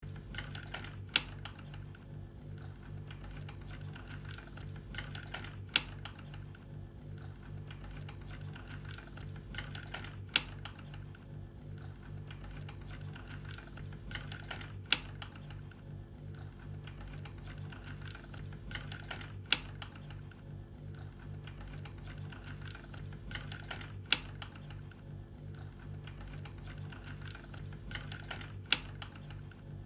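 Mechanical automaton running through its cycle: a steady low hum under continuous light clicking and clattering of the mechanism, with a sharp louder click about every four and a half seconds as the cycle repeats.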